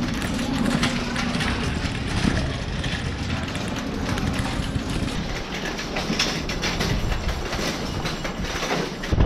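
Metal shopping cart rattling and clattering as it is pushed along, its wheels and wire frame shaking.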